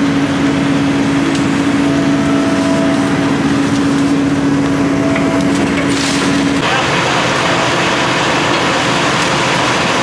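Excavator digging right beside a stuck tracked tractor, its diesel engine running with a steady drone while the bucket scrapes and crunches through wet soil and corn stalks. The drone stops suddenly about two-thirds of the way in, leaving a dense engine-and-digging noise.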